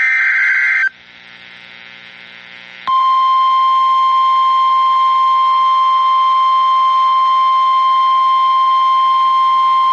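NOAA Weather Radio emergency alert signal: a short burst of screechy SAME digital header data, then about two seconds later the steady single-pitch 1050-hertz warning alarm tone starts and holds. It marks the start of a new warning broadcast.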